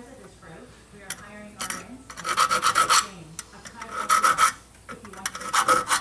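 Small hand file rasping on the steel pan of a foothold trap, cutting a night-latch notch into its edge. After a few light clicks, there are three loud file strokes about a second and a half apart, starting about two seconds in.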